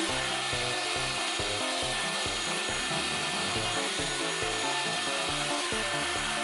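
Power router running steadily, its bit cutting recesses into a black walnut slab, with background music with a changing bass line.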